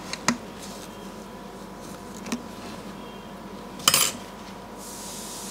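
Small metal hand tools clicking and clinking on an electronics repair bench, with a louder clatter about four seconds in. A steady airy hiss starts near the end.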